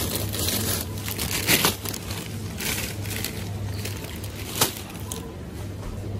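Plastic bags of frozen vegetables crinkling and crackling in a series of short rustles, the loudest about one and a half and four and a half seconds in, over a steady low hum.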